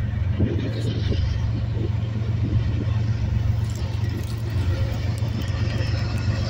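Approaching BNSF freight train's diesel locomotives running with a steady low rumble.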